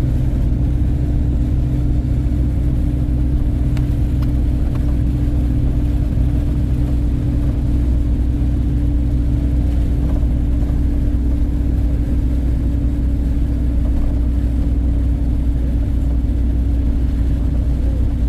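Steady drone of a running vehicle engine with road noise, heard from inside a moving car; it holds one even pitch and level throughout.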